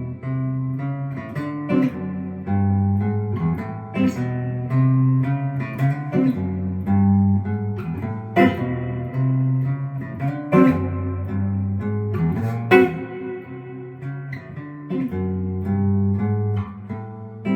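Fender D'Aquisto electric archtop guitar played clean through a solid-state amp with reverb: a run of picked single notes and chords. The tone is warm and kind of dark, and a few notes are struck noticeably harder than the rest.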